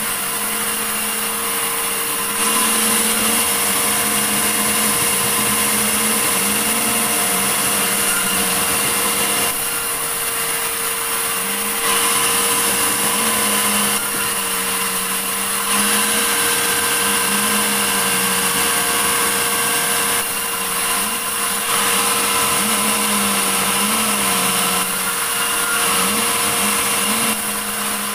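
Sawmill saw cutting through a large medang log: a steady, loud hissing cut over a running machine tone that dips and recovers every few seconds.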